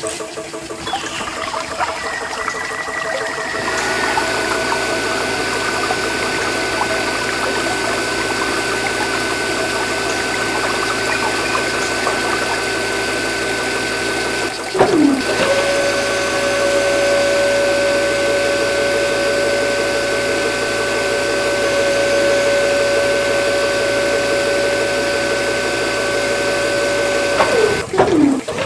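Small DC hobby motors whining steadily while a toy borewell drill bit spins in muddy water, over the noise of water churning and gurgling. The whine dips in pitch twice, about halfway and near the end.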